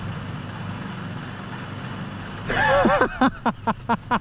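Steady outdoor hiss, then about two and a half seconds in a loud, high yelp followed by rapid bursts of laughter, about five a second.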